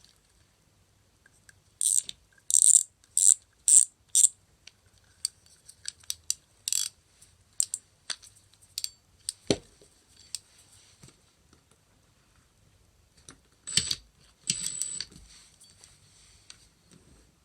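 Fishing reel and line-winder parts being handled: a run of irregular sharp mechanical clicks and clacks. The clicks cluster a couple of seconds in and again near the end.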